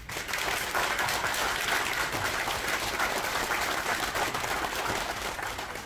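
A roomful of guests applauding. The clapping starts all at once and thins out near the end.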